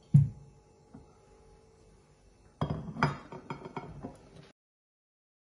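Dishes and kitchenware handled on a countertop: one loud, heavy thud just after the start, then about two seconds of clinks and knocks as a plate and serving spatula are set out, ending in a sudden cut to silence.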